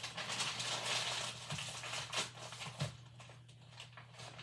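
Kitchen utensil scraping and chipping at a rock-hard block of brown sugar. A gritty scraping runs for about two seconds, then comes a few sharp knocks, then quieter scraping.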